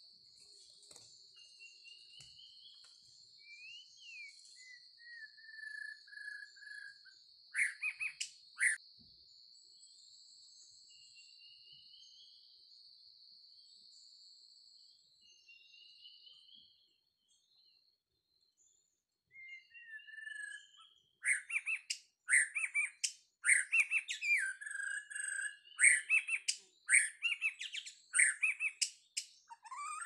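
White-rumped shama song: clear whistled notes sliding up and down, then, about two-thirds of the way in, a run of loud, sharp, rapidly repeated calls. A steady high insect drone runs under the first half and fades out around the middle.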